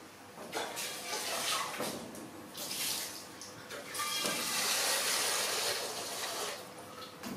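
Water running from a tap into a sink, growing stronger about halfway through.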